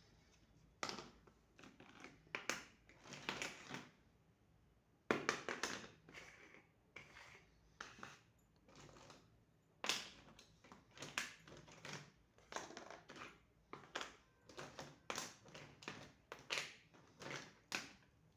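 Small plastic toy pieces and their packaging being handled and unpacked: irregular clicks, taps and crinkly rustling bursts.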